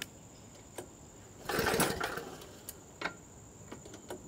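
Toro 824 snowblower engine being pull-started: one rasping pull of the recoil rope, cranking the engine for under a second without it firing, with a few light clicks around it. The engine fails to catch, which the owner puts down to too little fuel after the fuel valve had been shut off.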